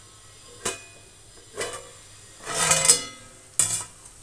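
Metal cookware knocking against a kadai, four ringing clanks. The third, near the middle, is the loudest and rings the longest.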